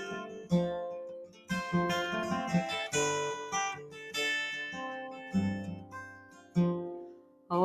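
Acoustic guitar strumming chords in an unaccompanied instrumental passage of a folk song. Each strum rings out and fades before the next.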